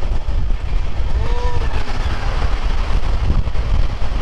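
Heavy wind buffeting on the microphone over the steady rumble of a moving express train, picked up from outside the coach as it runs past a goods train of open steel wagons on the next track. A brief faint tone rises and falls about a second in.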